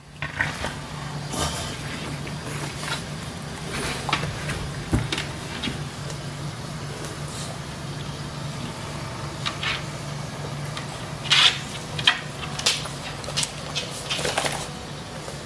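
English bulldog snorting and snuffling in short, irregular sounds, with a cluster near the end, over a steady low hum from an electric fan.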